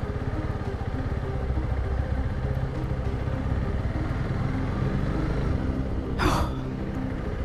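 Honda CRF300 Rally's single-cylinder engine running steadily as the motorcycle rides along. A brief burst of noise comes about six seconds in.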